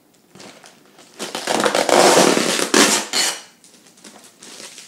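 Clear plastic packaging crinkling and rustling loudly for about two seconds, starting about a second in, as a plastic-wrapped fishing rod is pulled out of a soft plastic mailer. Lighter crackles of the plastic come before and after.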